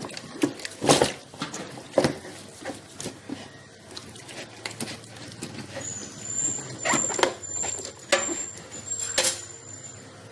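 Hands scrubbing and turning a whole plucked duck in a plastic basin in a steel sink: wet skin rubbing and squelching, with irregular sharp knocks as the carcass and hands hit the basin, loudest about a second in and again near the end.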